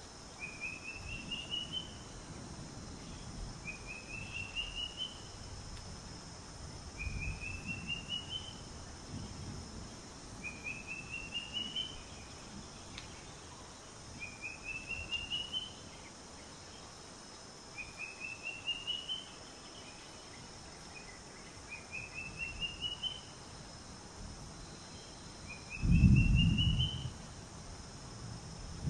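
A bird repeating a short song phrase about every three and a half seconds, each a quick run of notes rising in pitch, over a steady high insect hiss. Low rumbles come and go underneath; the loudest is a brief one near the end.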